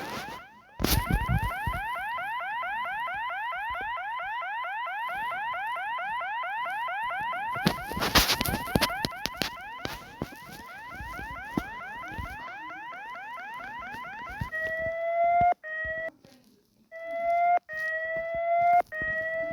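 Electronic warning alarm sounding a fast, repeating rising sweep, several times a second, with a burst of noise about eight seconds in. Near the end it switches to slower rising tones, each about a second long, broken by a short gap.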